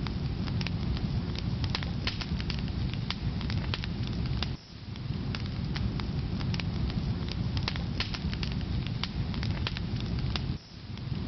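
Wood fire in a fireplace crackling steadily: a low rumble of flames under many sharp, irregular pops and snaps from the burning firewood, dipping briefly twice.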